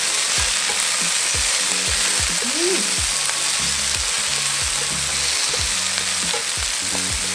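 Chicken gizzards and vegetables sizzling steadily as they are stir-fried in oil in a frying pan and stirred with chopsticks.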